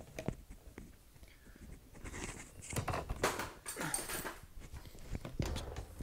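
Close-up handling noise of a clip-on lavalier microphone held against a refrigerator thermostat: scattered rustles and small clicks, louder rustling about three seconds in.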